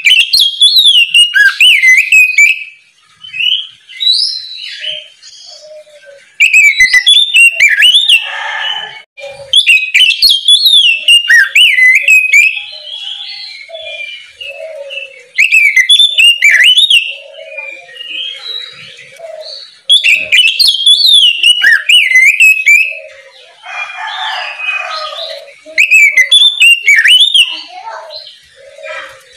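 Oriental magpie-robin (kacer) singing loudly in the open 'ngeplong' style: rapid runs of rich whistles and warbles that leap up and down in pitch, in phrases of two to three seconds with short pauses between them, about six phrases in all.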